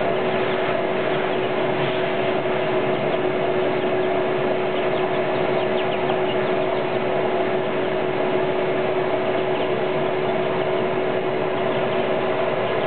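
Vacuum cleaner running steadily, a constant whine over a broad rush of air, with chicks peeping faintly above it now and then.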